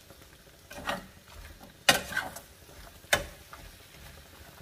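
Slotted metal spoon stirring and scraping migas (eggs and tortilla pieces) in a stainless steel skillet. There is a short scrape about a second in, and sharp clinks of the spoon against the pan at about two and three seconds in.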